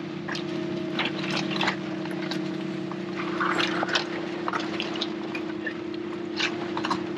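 A fishing boat's engine hums steadily while seawater splashes and fish and plastic coolers knock and scrape on the deck, with a burst of splashing about halfway through.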